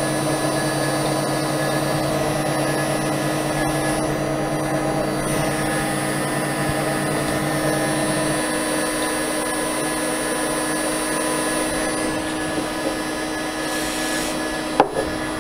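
CNC router spindle with a 6 mm two-flute end mill milling aluminium plate: a steady whine of several tones over cutting noise, with a low hum dropping out about halfway. Near the end there is a brief hiss, then one sharp click.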